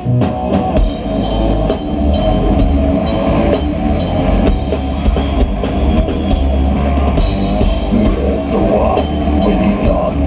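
A Swedish death metal band playing live at full volume: heavy distorted guitars and bass over fast drumming with cymbals, the song kicking in at the start.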